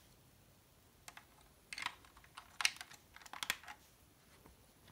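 Small plastic model-kit parts clicking and tapping as they are handled and fitted onto the underside of the plastic model: a handful of sharp clicks about a second apart.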